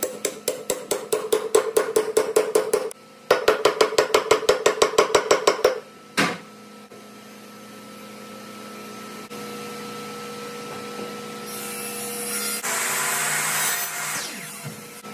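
Hammer rapidly striking the barrel end of a wooden bat being loaded for weight: two quick runs of blows, about four or five a second, with a short break between, then one last blow. Near the end a short saw cut, from a miter saw.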